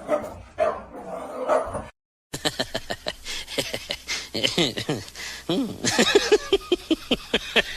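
A dog vocalising in short pitched yelps and whines that rise and fall, coming several a second in the second half. The sound cuts out briefly about two seconds in.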